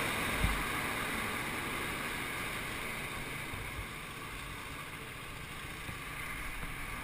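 Muffled, steady rumble of idling motorcycle engines under a hiss of noise, heard through a helmet-mounted action camera's housing, easing slightly in level. A soft thump comes about half a second in.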